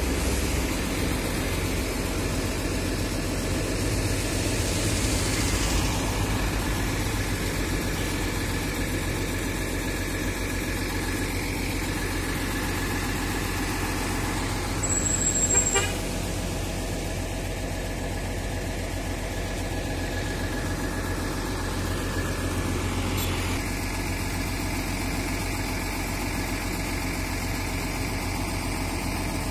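Bus diesel engine idling steadily, with a brief louder sound about halfway through.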